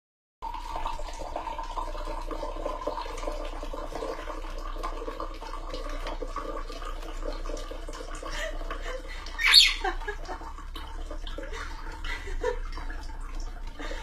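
A parrot gives one loud, sharp squawk about nine and a half seconds in, with a few fainter short calls around it, over a steady background noise.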